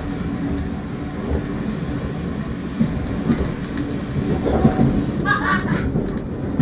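Heritage railway passenger train running, heard from inside the carriage: a steady rumble with a low hum and a few knocks from the wheels on the track. A short high-pitched squeak comes about five seconds in.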